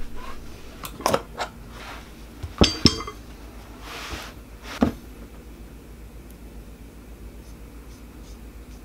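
Sharp metallic clinks and knocks as a small metal paint tin is opened and handled, two of them close together about three seconds in with a brief ring. A soft wiping rustle of a cloth comes about four seconds in, and a last knock just before five seconds.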